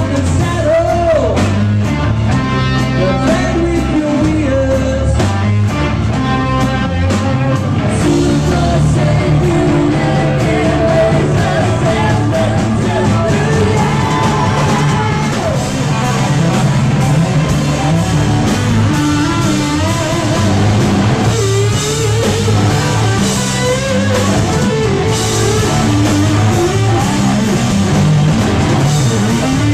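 Live rock band playing: a man singing into a microphone over guitar and a drum kit keeping a steady beat.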